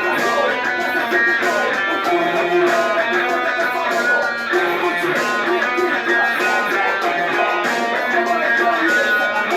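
Guitar music: an instrumental passage of plucked and strummed notes in a steady rhythm.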